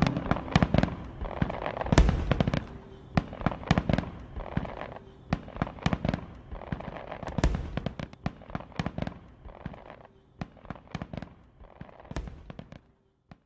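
Fireworks going off: a rapid, irregular string of sharp bangs and crackles that thins out and fades away near the end.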